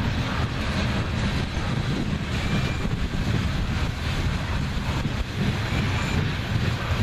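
BNSF freight train rolling past: a steady, heavy rumble of wheels on the rails with faint knocks, unbroken.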